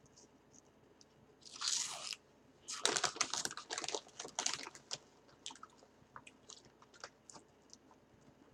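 A person biting into and chewing Rap Snacks hot cheese fries, a crunchy puffed snack, close to the microphone: a short rustling noise about a second and a half in, then loud crunching for about two seconds that thins into quieter chewing.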